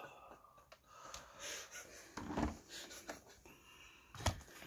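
Quiet workshop with faint breathing-like sounds close to the microphone and a single light knock a little over four seconds in.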